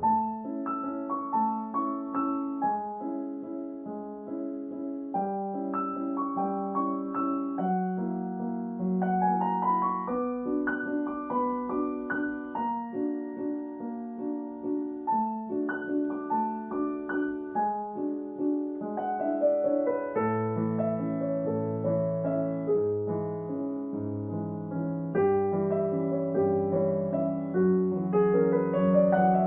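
Background piano music with flowing arpeggios and runs of notes.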